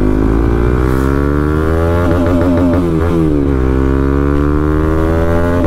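Bajaj Pulsar NS200's single-cylinder engine through a full-system Akrapovič exhaust with the dB killer removed, accelerating under way. The engine note climbs, wavers about two seconds in, dips about three and a half seconds in, then climbs again.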